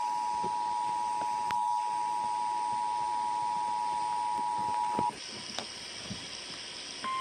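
Emergency Alert System two-tone attention signal, a steady pair of tones just under 1 kHz, which cuts off about five seconds in. A faint hiss follows, and just before the end a single steady, slightly higher alert tone comes on, the kind of 1050 Hz tone that NOAA Weather Radio sends.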